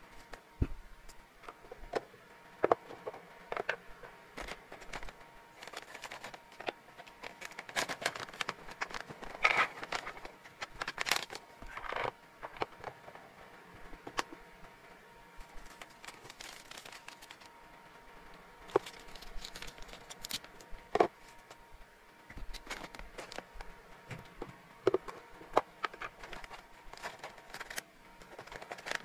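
Hands handling dry baked hamster biscuit treats and clip-lid hard plastic storage containers: scattered clicks, knocks and rattles of plastic and treats. There is a denser stretch of clattering about eight to twelve seconds in.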